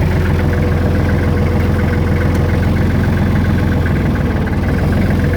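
Kubota L39's four-cylinder diesel engine running steadily at a low, even speed.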